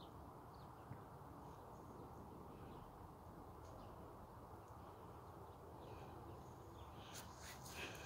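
Quiet outdoor ambience with a low steady background hum and a few faint bird chirps. Near the end comes a short spell of rustling and clicking from leaves and twigs brushing against the phone.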